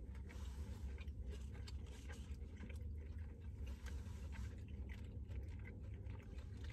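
People chewing fried cheese curds, heard as many small irregular mouth clicks, over a steady low hum inside the car cabin.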